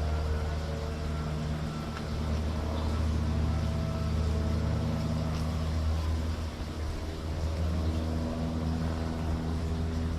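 A motor running steadily with a continuous low hum.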